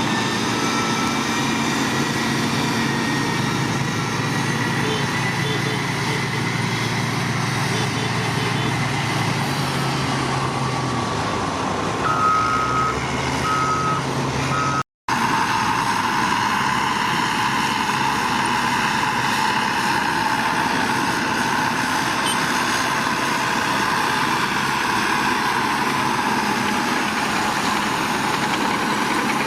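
Heavy construction machinery running: a diesel engine runs steadily, and a reversing alarm beeps a few times about twelve seconds in. About halfway through the sound cuts out for an instant and gives way to another steady machine noise.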